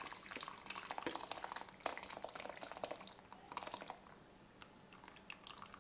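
Thick curd sauce poured from a stainless steel saucepan into a bowl, wet splattering and dripping with small clicks of a spoon scraping the pan. It is busy for about the first four seconds, then thins to a few drips.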